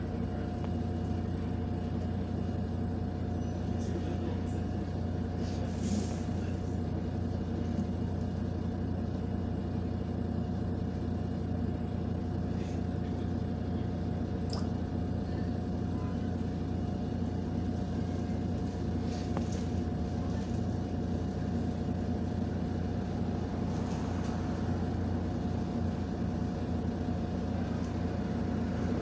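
Cabin sound of a MAZ-105 articulated city bus under way: the engine and drivetrain give a steady low drone with a constant whine above it. A few faint, short rattles can be heard now and then.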